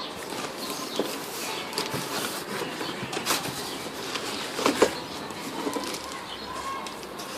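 Rustling and light clattering of packaging and grill parts being handled during unboxing, with a sharper knock a little before five seconds in.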